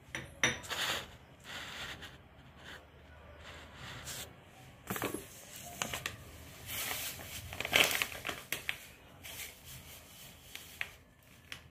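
Quiet, irregular handling noise with a few sharp clicks, as rock salt is measured out into a small steel bowl for the pickle masala.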